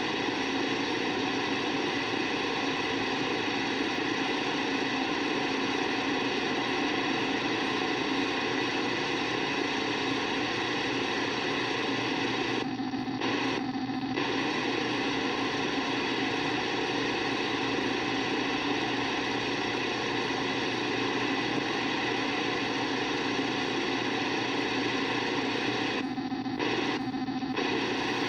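Steady buzzing interference noise on channel 23 of a radio receiver, a harsh hiss laced with many fixed tones. It drops out briefly twice in quick succession about halfway through, and again near the end.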